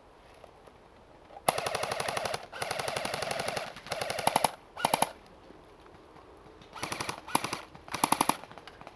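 AK-style airsoft rifle firing on full auto: a string of rapid-fire bursts starting about a second and a half in, a short pause, then three short bursts near the end.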